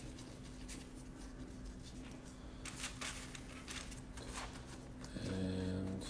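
Soft, scattered rustles and light taps of nitrile-gloved hands rolling sweet potato dough into balls and setting them on a parchment-lined baking sheet. A short, steady hum stands out near the end.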